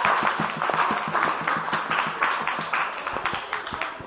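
Audience applause: many hands clapping at once, thinning out and dying down near the end.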